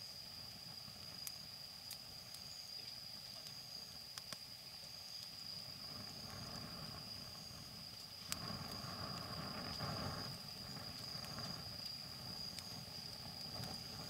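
Wood bonfire crackling, with scattered sharp pops and a louder rush of noise about eight seconds in, over a steady high-pitched whine and faint repeating high chirps.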